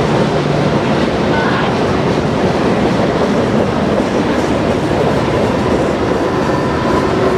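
Freight cars of a mixed freight train (boxcars, tank cars and covered hoppers) rolling past: a steady, loud rumble and clatter of steel wheels on the rails.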